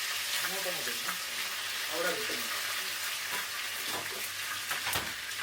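Curry leaves and mustard seeds sizzling in hot oil in a pan, a steady hiss with a few sharp pops and crackles.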